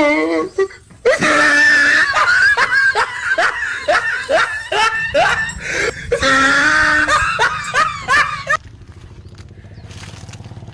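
A person laughing loudly in quick, high-pitched repeated bursts, which stops suddenly about eight and a half seconds in. A faint steady low hum remains after it.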